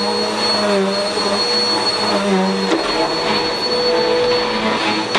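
Vacuum cleaner running steadily, a high motor whine over a broad rushing sound, with its lower note wavering a little.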